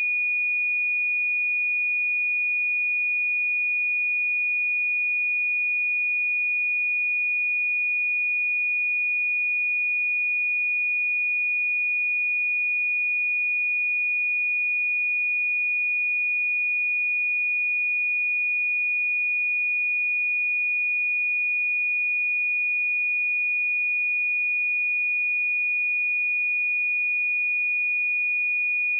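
A pure 2455 Hz sine-wave test tone: one steady, high-pitched tone held at constant pitch and level, used to check speakers and headphones.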